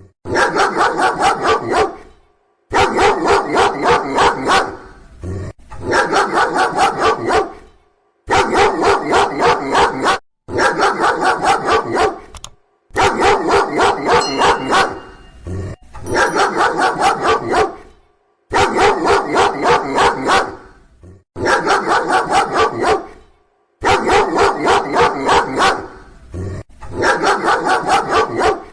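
A dog barking loudly in rapid runs of about five barks a second. Each run lasts about two seconds, with short silent breaks between.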